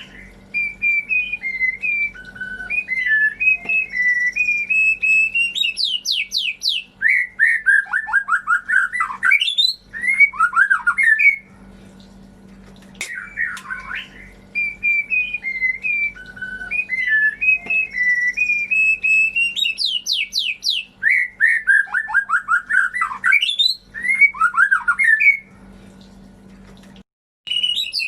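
White-rumped shama (murai batu) song played as a lure recording: varied whistled phrases and rapid down-slurred trills, with the same sequence looping about every 13 seconds. A faint steady hum lies underneath, and the sound drops out briefly near the end.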